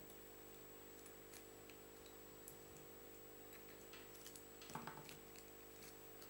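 Near silence over a steady low hum, with faint scattered ticks and a brief rustle about three-quarters of the way through, from hands handling a fly and its materials at a fly-tying vise.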